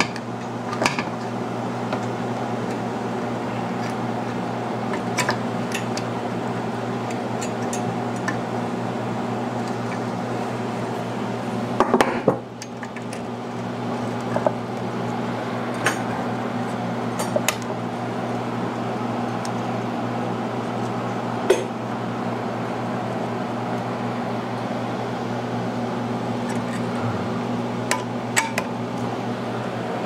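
Scattered small metal clinks and taps from pliers and carburetor parts being handled while a carburetor and its linkages are fitted back onto a Briggs & Stratton mower engine, loudest in a cluster about twelve seconds in, over a steady low hum.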